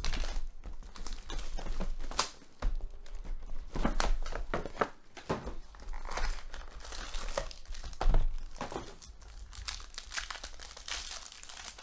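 Plastic wrap and gold foil trading-card packs crinkling and tearing as a sealed box of Panini Black Gold football cards is opened and a pack is ripped open. A few knocks of the cardboard box, the sharpest about eight seconds in.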